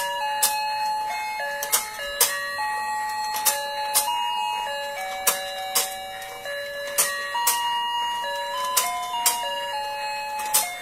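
A toy fishing game playing its electronic tune: a simple beeping melody of held notes stepping up and down, with sharp clicks in pairs repeating about every two seconds.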